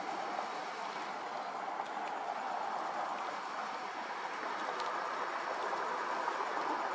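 Steady hiss of distant road traffic, slowly growing a little louder.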